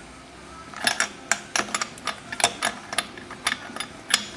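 Spark plug wrench clicking and clinking on the new spark plug as it is tightened into the Echo SRM-225 trimmer's engine: about a dozen sharp, irregular metallic clicks, starting about a second in.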